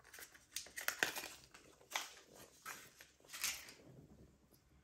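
Hands handling a laptop RAM module and the laptop's open case: a scattered series of small clicks, taps and scrapes, the loudest about two seconds in and again around three and a half seconds in.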